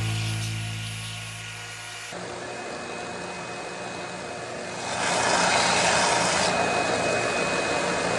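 A benchtop belt sander runs with a vacuum drawing on its dust port. For the first two seconds a steady motor hum is heard, then a steady rushing noise that gets louder about five seconds in.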